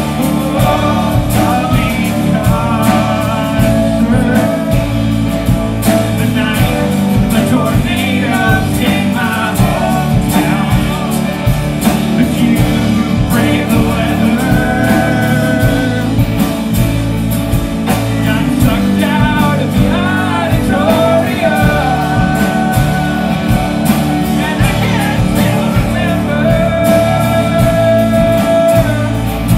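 Live rock band playing a song with a sung lead vocal over electric and acoustic guitars, bass, drums and keyboard.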